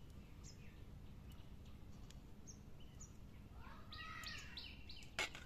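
Birds chirping over a faint steady background: a few short high chirps, then a busier run of calls a little before the end. A single sharp click near the end is the loudest sound.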